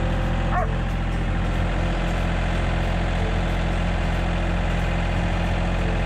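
An engine running steadily, with one short animal call about half a second in.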